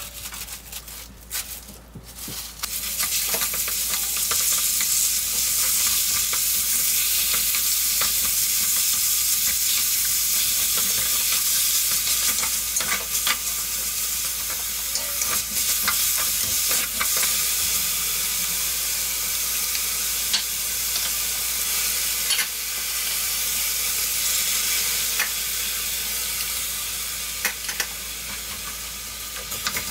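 Green onions and thin-sliced pork belly frying in oil in a stainless steel wok, stirred with a wooden spatula that scrapes and taps against the pan. After a couple of quieter seconds with a few knocks, a steady sizzle starts about two to three seconds in and holds.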